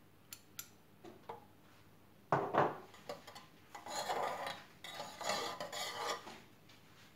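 Metal spoon stirring and scraping inside a small saucepan of melted beeswax mixture, in a series of rubbing strokes, the first one the loudest. A couple of light clicks come just before.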